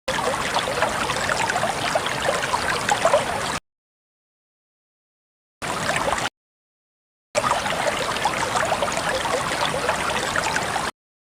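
Running water splashing and gurgling, in three stretches broken by abrupt cuts to dead silence.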